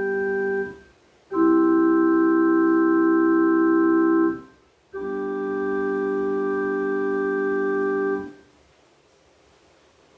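Digital piano set to an organ voice plays the hymn's closing Amen cadence. A held chord ends about half a second in, then come two long chords, each sustained at an even level and released cleanly.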